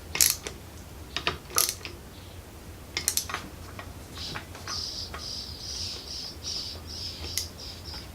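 Hand socket ratchet turning over a Chinese 250cc ATV engine in gear. There are a few sharp clicks at first, then a fast run of ratchet pawl clicking from about halfway. The output sprocket turns with the crank, a sign that the new clutch plates are engaging.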